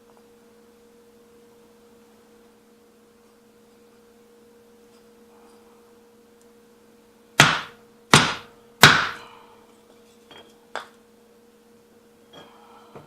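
Three hard hammer knocks on metal, a little under a second apart, each with a short ringing decay, followed by a few light taps. A steady low hum runs underneath.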